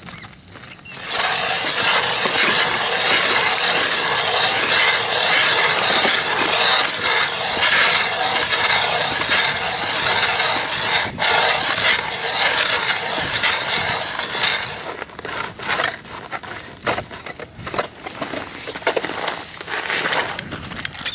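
Hand ice auger drilling through thick lake ice: its blades grind and rasp steadily, starting about a second in. After about fourteen seconds the steady grinding breaks into irregular crunches and knocks of ice shavings as the auger is worked out of the hole.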